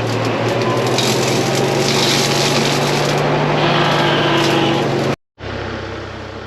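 Kubota KX40 mini excavator's diesel engine running hard under load, driving a two-blade mower head that is cutting through peach tree limbs, with a rough, noisy cutting rush over the steady engine tone. About five seconds in, the sound cuts off for a moment and comes back as the engine running more quietly.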